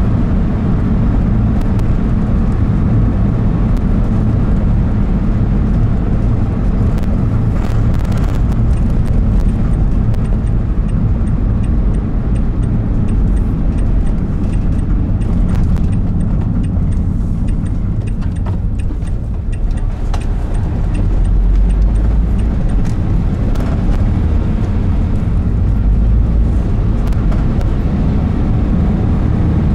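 Car engine and tyre road noise heard from inside the cabin while driving, a steady low rumble that dips briefly about two-thirds of the way through and then grows deeper as the car pulls away again.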